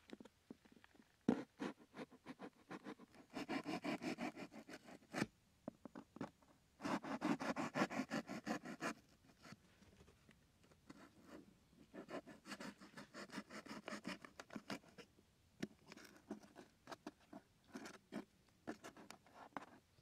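A knife sawing through corrugated cardboard in rapid back-and-forth strokes, in three spells of about two seconds each, with scattered scratches and taps between.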